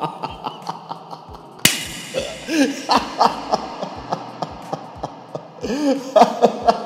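A man laughing in embarrassment in short bursts, partly muffled behind his hands, with a few rising-and-falling voiced whoops. A steady light beat of clicks runs underneath.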